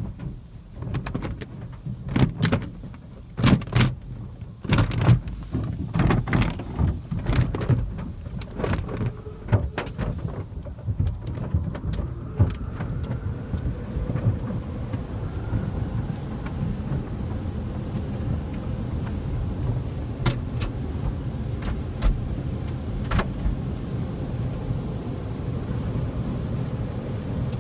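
Belanger tunnel car wash heard from inside the car: cloth wash strips slapping and scrubbing against the body and glass in a rapid, irregular series of thumps for about the first ten seconds, then giving way to a steady rushing of water spray and machinery with only an occasional knock.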